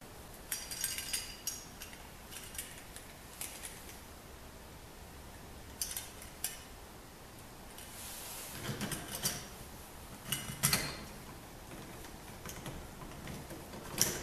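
Metal parts of an entry door knob and latch clicking and clinking as they are worked into line and fitted together. The clicks are scattered, with a short rattle about two-thirds through.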